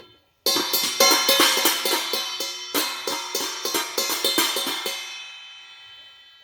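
A child playing a drum kit: a quick run of drum and cymbal hits, about four or five a second, starting about half a second in. The cymbals ring on and fade away near the end.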